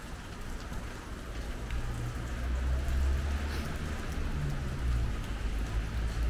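Steady rain falling on the street, an even hiss with scattered drop ticks. A low rumble joins underneath about two seconds in and grows louder.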